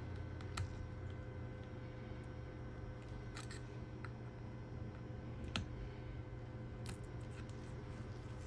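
Scattered small sharp clicks and taps of small tools and phone parts being handled during a smartphone repair, about half a dozen, the loudest about five and a half seconds in, over a steady low electrical hum.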